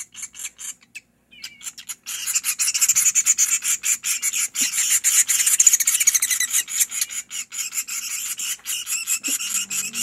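Chimney swift nestlings begging with a rapid, raspy chittering of many short high pulses. It breaks off about a second in, then comes back louder and denser.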